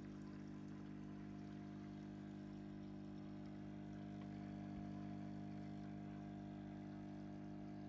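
Aquarium pump humming steadily, a low constant hum with no change in pitch or level.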